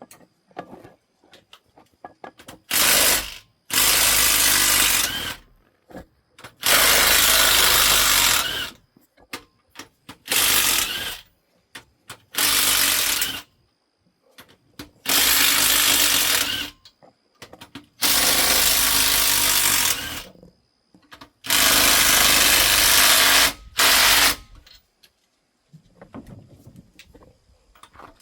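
Impact wrench run in repeated bursts of one to two seconds, about nine in all, hammering at the tight cylinder head bolts of a big-block Chevy V8 to break them loose.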